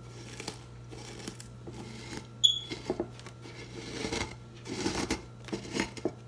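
Fingers crushing crumbled hot Cheetos in a glass baking dish: irregular crunching and crackling, with a single short high ringing clink about two and a half seconds in.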